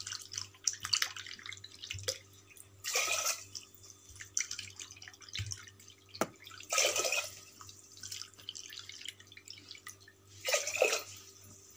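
Water poured into a pressure cooker pot of sugar, in three short pours a few seconds apart, with drips and small splashes between them.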